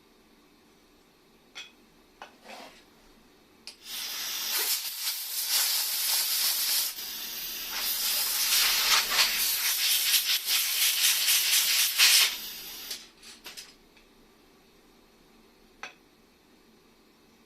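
A pressurised jet hissing from a nozzle for about eight seconds, wavering in strength, with a few light clicks and taps before and after.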